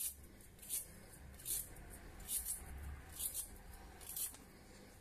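Swivel vegetable peeler scraping down a raw carrot in short strokes, six strokes a little under a second apart.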